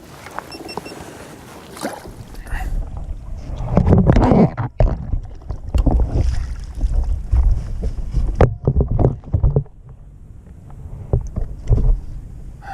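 Irregular knocks, bumps and handling noise on a fishing kayak while a freshly caught chain pickerel is landed and handled, loudest a few seconds in, then easing off with a few last knocks near the end.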